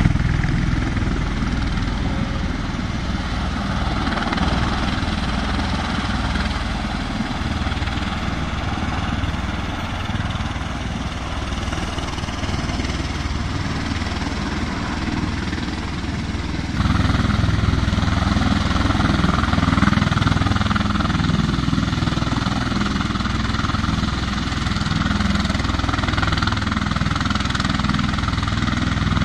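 Steady engine and rotor rumble of a V-22 Osprey tiltrotor running nearby, mixed with a broad rushing hiss. The noise steps up abruptly and gets louder about 17 seconds in.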